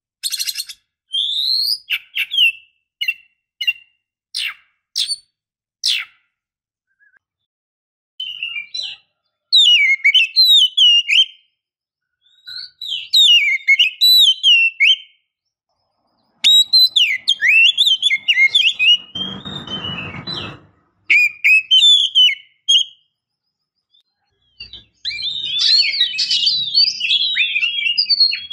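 Oriental magpie-robin (kacer) singing: a string of short, sharp notes, then phrases of varied, rapidly changing whistles broken by pauses of a second or so, with a brief harsh rasp about twenty seconds in.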